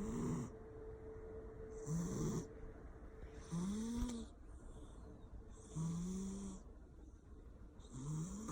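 Persian cat snoring: about five snores roughly two seconds apart, each a short rising nasal note with a breathy hiss.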